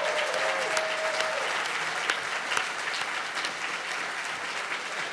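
Large audience applauding, with one voice holding a long cheer over the first second or so.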